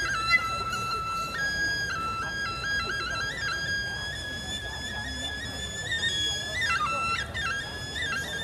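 Balinese bamboo suling flute playing a high melody, holding long notes broken by quick stepping ornaments and trills, with a few pitch bends about seven seconds in.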